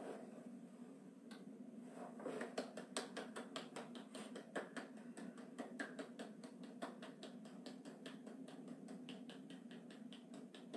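Faint, quick light hand claps, several a second, starting about two seconds in and going on for most of the rest, over quiet room tone.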